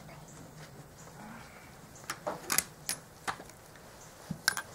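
A few light clicks and taps of parts and tools being handled while a car's dash is taken apart, scattered through the middle and near the end.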